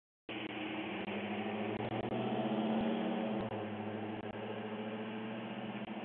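A vehicle's engine running, a steady low hum with hiss, heard through a doorbell camera's microphone; it swells to its loudest about three seconds in and then slowly fades.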